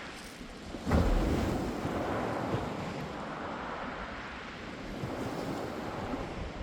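Sea waves breaking on a pebble beach. A wave crashes about a second in, and its wash runs back over the shingle and slowly fades.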